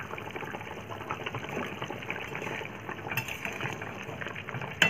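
Egg and potato curry bubbling as it simmers in a pan, a steady crackle of small pops. Two clinks of a metal spoon against the pan as it is stirred, the sharper one near the end.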